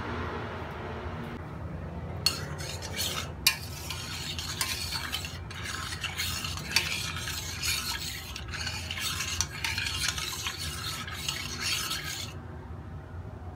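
A metal spoon stirring coconut milk in a stainless steel saucepan, scraping against the pan with sharp clicks. It starts about two seconds in and stops near the end.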